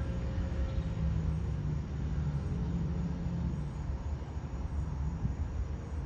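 Distant Long Island Rail Road diesel train: a low, steady engine drone with a faint hum, growing a little fainter in the second half.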